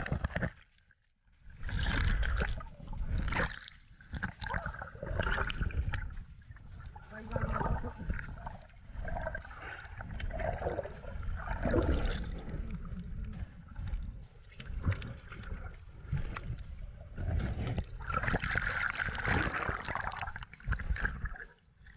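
Water sloshing and bubbling around a swimmer, picked up underwater by a camera in a waterproof housing, so it is muffled and heavy in the low end. It comes in irregular surges every second or two as the swimmer moves.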